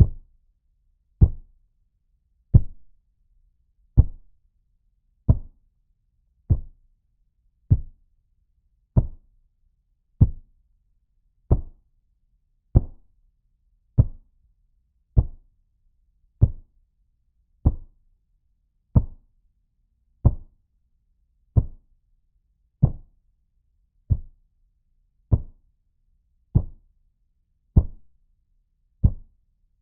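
Muffled thud impacts in a steady series, one about every second and a quarter. Each is a single dull, low hit that dies away quickly.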